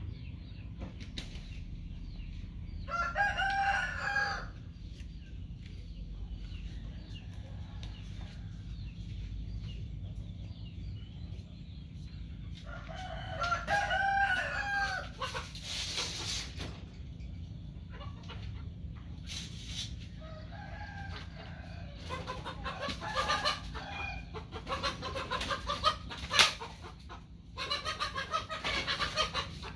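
A rooster crowing twice, a few seconds in and again about halfway, each crow about a second and a half long. Later comes a run of clucking and short calls, with one sharp click near the end, over a steady low hum.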